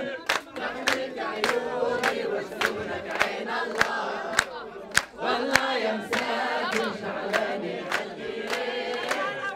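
A crowd singing together, clapping in time at a little under two claps a second.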